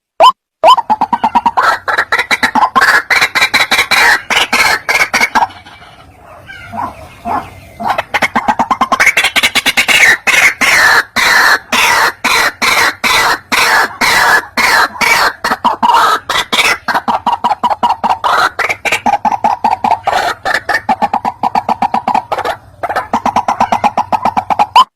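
White-breasted waterhen (ruak-ruak) calling: long runs of loud, rapidly repeated harsh notes, a lure call meant to draw other waterhens in. The calling drops away about five seconds in and resumes about three seconds later.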